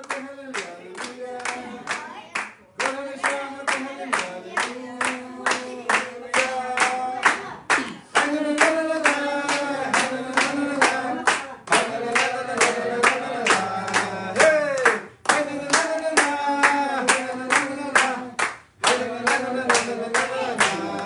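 A group of people clapping their hands in a steady rhythm, about three claps a second, along with group singing.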